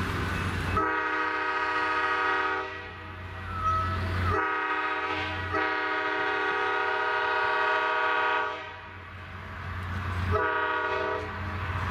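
Diesel locomotive air horn blowing three blasts, two long and one short, from the EMD FL9 leading the passenger train. The low steady rumble of the diesel engines runs underneath.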